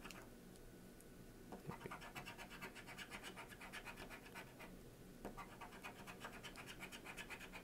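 Faint scratching off of the coating on a Missouri Lottery $30 Cash Explosion scratch-off ticket, in quick, rhythmic back-and-forth strokes. The strokes come in runs, broken by a few short pauses.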